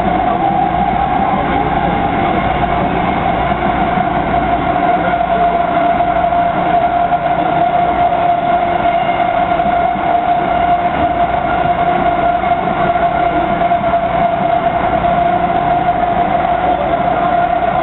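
MTR Kwun Tong Line metro train running between stations, its traction motors giving a strong, steady whine over the rumble of the wheels on the rails. The pitch dips slightly at first and then holds, as the train cruises at an even speed.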